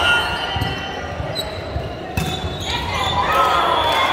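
Volleyball rally on a wooden court in a large, echoing sports hall: sharp hits of the ball, high squeaks from shoes, and players calling out.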